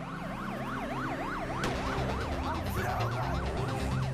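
Emergency-vehicle siren in yelp mode, its pitch swinging rapidly up and down about three times a second, over a low steady music bed.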